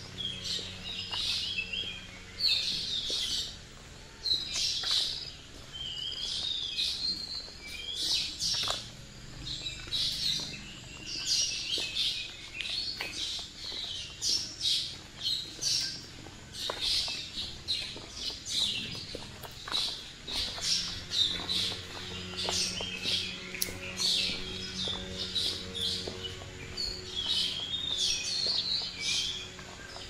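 Birds chirping and twittering without pause in quick, high overlapping phrases, over a faint low steady hum.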